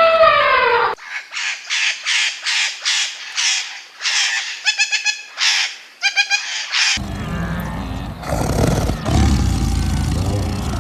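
The end of a falling, held animal call cuts off about a second in. A bird then gives harsh, raspy calls, about two a second, for some six seconds. A low rumbling noise takes over near the end.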